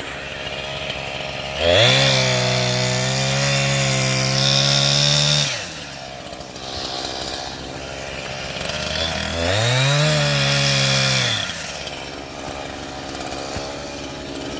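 Chainsaw cutting firewood: the engine revs up and runs at full speed for about four seconds, drops back to idle, then revs up again for about two seconds before settling back to idle.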